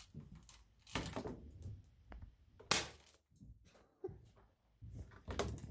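A few short knocks and rustling bursts from handling things at close range. The loudest is a sharp burst near the middle.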